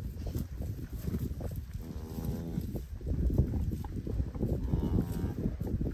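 Cattle mooing: one call about two seconds in and a shorter, fainter one near the end, over steady low background noise.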